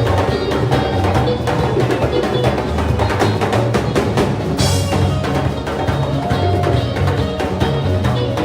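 Music driven by fast, dense drumming with sharp, clicky strokes over a pulsing bass line, without singing.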